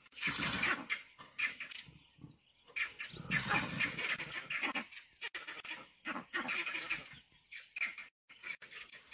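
Bursts of animal noise from a leopard tussling with porcupines, the loudest near the start and again around three to four seconds in.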